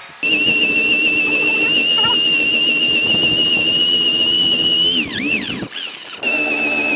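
Handheld electric power tool running with a steady high-pitched whine; about five seconds in its pitch dips sharply and swoops back, then it cuts out for half a second and starts up again.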